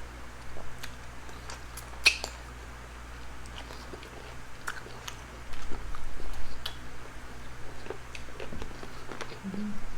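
Close-up eating sounds: chewing and biting with wet mouth clicks and smacks. One sharp click about two seconds in, and the chewing grows louder from about halfway.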